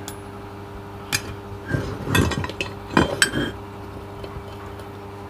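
Steel tool parts clinking and knocking together as they are handled: a few light metal clicks, bunched around two and three seconds in.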